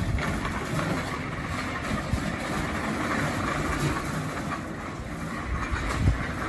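Ocean waves washing onto a shore: a steady, even rush of surf over a low rumble, with no distinct events.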